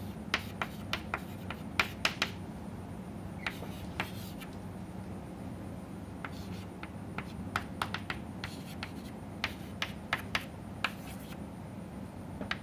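Chalk writing on a chalkboard: sharp, irregular taps and short scrapes as an equation is written, over a low steady hum.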